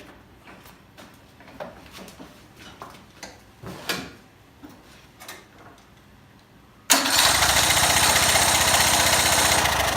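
Light handling clicks, then about seven seconds in a lawn mower engine is suddenly cranked over with its cylinder head removed. It spins loudly and steadily with a fast pulsing for about three seconds. With the head off it turns over without compression and cannot fire.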